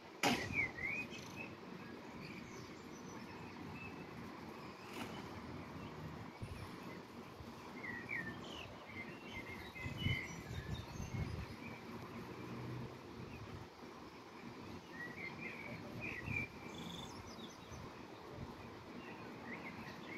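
Outdoor ambience: small birds chirping now and then over a steady background rush, with a sharp click just after the start.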